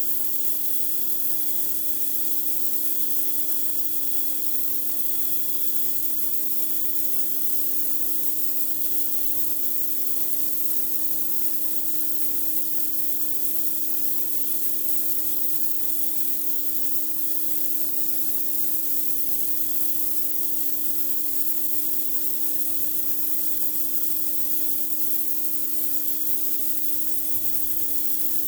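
Pressure washer spraying high-pressure water onto a concrete driveway: a steady, unbroken hiss of the jet over the constant hum of the machine running.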